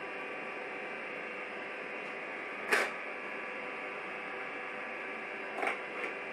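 Gene Cafe CBR-101 coffee roaster running empty while it preheats its roasting drum: a steady whirr from its fan, heater and turning drum. A sharp click comes about three seconds in, and two fainter clicks near the end.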